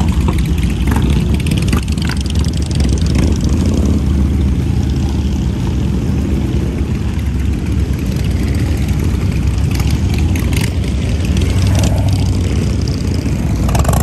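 Motorcycle engines running steadily, a continuous low engine drone.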